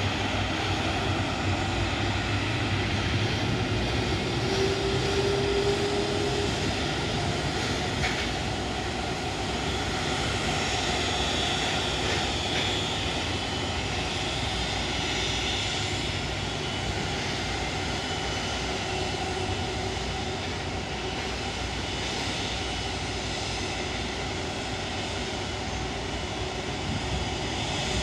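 Boeing 737 MAX 8's CFM LEAP-1B jet engines running steadily on the ground: a continuous rushing hum with a high whine, heard through the aircraft cabin.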